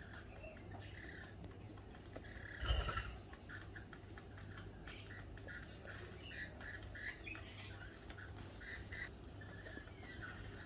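Rainbow lorikeets and other birds chattering at a feeder in many short, repeated chirps. A brief louder thump comes about two and a half seconds in.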